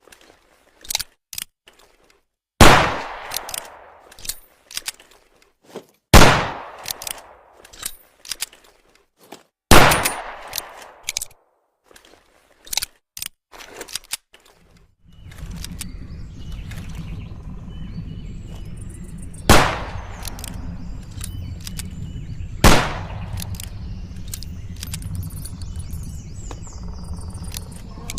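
Single-shot homemade pistol fired five times, each shot a sharp bang that trails off over about a second, with small clicks and knocks between shots. The first three shots come about three and a half seconds apart. About halfway a steady low noise sets in, under two more shots that are a little quieter.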